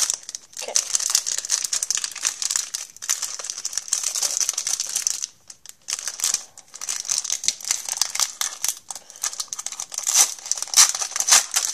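Crinkling and tearing of a foil hockey card pack wrapper as it is handled and opened, a dense crackle with a short pause a little past the middle.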